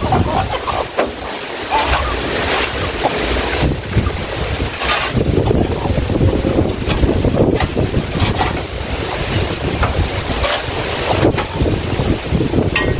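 Flat metal shovel scraping across a concrete chicken-coop floor, clearing out droppings and litter, in irregular strokes a second or two apart. A low rumble of wind on the microphone runs under it.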